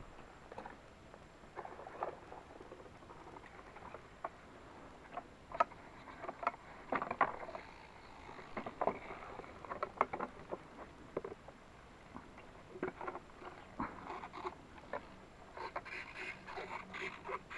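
Someone moving through brush: irregular rustling and crackling with scattered sharp snaps, busier near the end.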